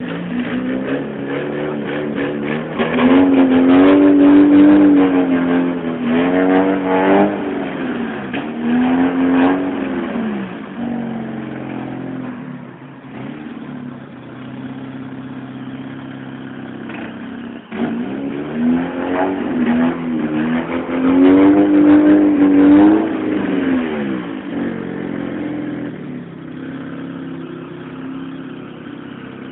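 Fiat Uno with a loud exhaust, revved in repeated blips in two spells, the engine note rising and falling, and settling back to a steady idle between and after. Pops come from the exhaust during the revving.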